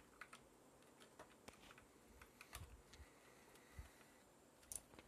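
Near silence with faint, scattered light clicks and taps, a little louder about two and a half seconds in and near the end: small parts being handled as an RC car's phone-battery lead is connected to a homemade voltage tester.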